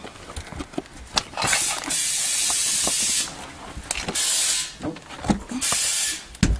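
Compressed air hissing into a tyre whose bead has come off the rim, in three bursts, the first about two seconds long and the others shorter, with short clicks and knocks between; it is being inflated to reseat the bead.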